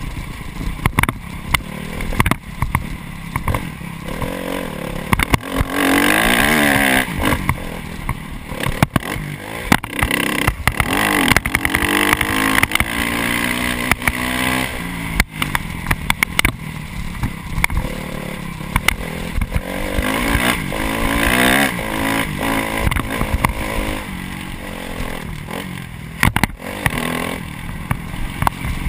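Honda CRF250 dirt bike's single-cylinder four-stroke engine revving hard, its pitch rising and falling several times as the rider accelerates and shifts on the track. Frequent knocks and clatter run through it from the bike over the rough ground.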